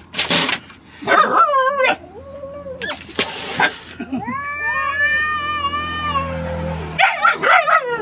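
Cats and a dog squaring off: two sharp hisses, long wavering yowls, and a quick run of short yelps near the end.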